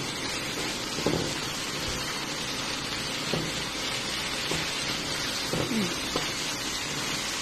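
Cabbage, carrots and chicken sizzling steadily in a frying pan as they are stir-fried with a spatula.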